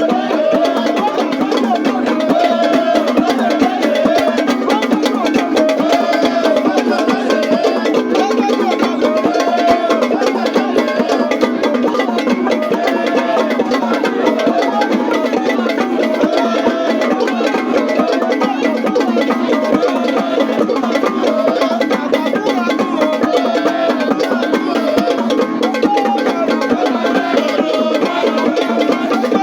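Music with percussion, steady throughout, built on a short rising-and-falling melodic phrase that repeats over and over.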